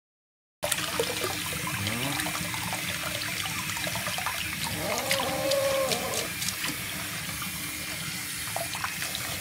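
Running water splashing steadily while a cat is rinsed during a bath, starting abruptly just after the start. A brief pitched cry is heard about five seconds in.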